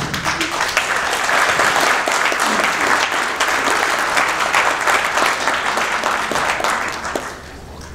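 Audience applauding, a dense patter of handclaps that dies away about seven seconds in.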